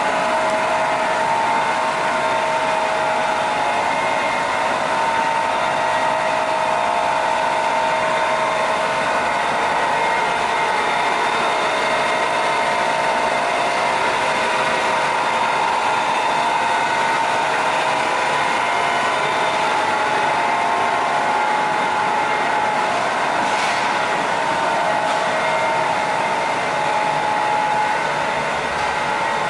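Bavelloni PR/88 vertical straight-line glass edging machine running, its eight spindle motors and conveyor giving a steady mechanical hum.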